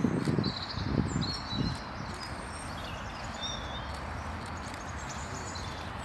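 A flock of feeding redpolls giving a few short, thin, high calls over a steady outdoor hiss. A few soft low thumps sound in the first two seconds, louder than the calls.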